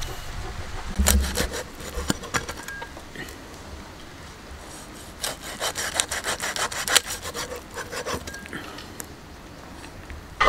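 A large knife sawing through a whole tuna to cut it into steaks, the blade rasping through the fish and scraping on the chopping block, with a few sharp knocks, most in a cluster about halfway through.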